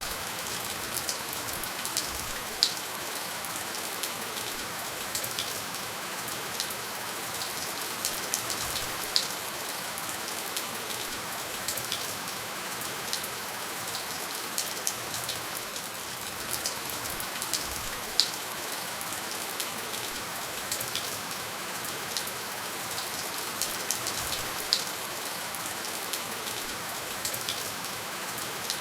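Steady rainfall, an even hiss with scattered sharper drop taps, now and then a louder single drip, and no thunder.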